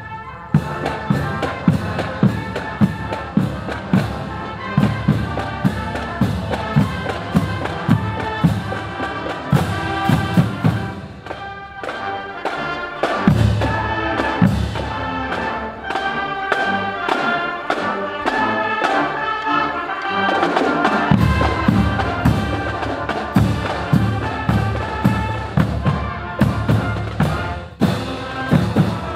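Marching band playing a march while on the move: brass melody over a steady marching beat on drums, about two strikes a second.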